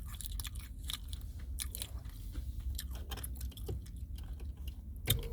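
Close-up chewing of a McDonald's chicken nugget: irregular crisp clicks and crunches of mouth and breading, over a low steady hum.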